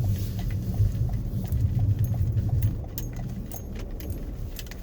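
Car cabin noise while driving through deep snow: a low engine and tyre rumble that eases off about three seconds in, with a row of light, evenly spaced ticks and scattered sharp clicks over it.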